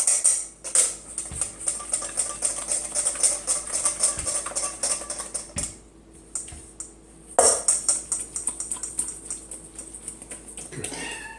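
Dense, rapid clicking and crackling clatter in two long spells, broken by a short pause a little past halfway.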